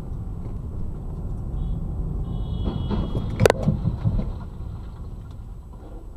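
Two cars colliding at an intersection, heard from inside a dashcam car over its steady engine and road rumble: a thin high squeal sets in about two seconds in, then about three and a half seconds in comes one loud bang of the impact and a short clatter of debris, after which the rumble fades.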